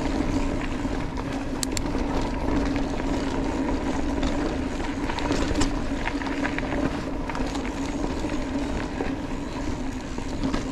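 Mountain bike rolling along a dirt trail: a steady tyre hum and rumble, with scattered small rattles and clicks from the bike.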